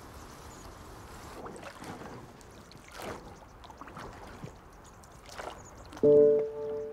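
Faint river water with a few soft splashes of rowing oars. About six seconds in, a bell-like tone is struck, loud and sudden, and rings on steadily.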